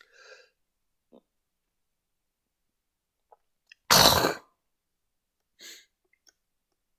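A person sneezes once, loudly, about four seconds in; the rest is nearly quiet apart from a few faint small noises.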